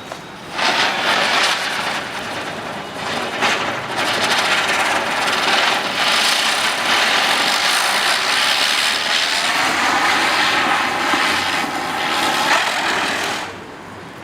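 Ground spinner firework (chakkar) burning: a loud steady hiss that starts suddenly about half a second in and dies away near the end.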